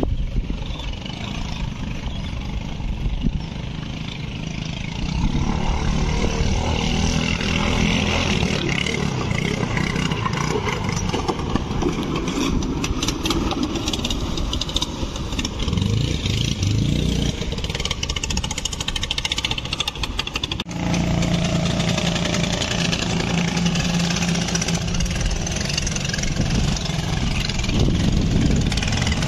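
Engines of small racing boats running flat out as they speed past, growing louder about five seconds in. The sound breaks off abruptly about two-thirds of the way through and picks up again with a steadier engine note.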